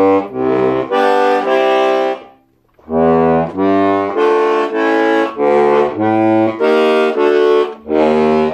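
Melodija Menges Slovenka III diatonic button box accordion in B-flat, F and C, played one button at a time. Each reed note is held about half a second before the next, with a short break about two and a half seconds in.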